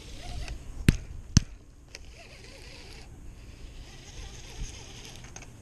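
Baitcasting rod and reel being handled: two sharp clicks about half a second apart, about a second in, then a faint steady rustle.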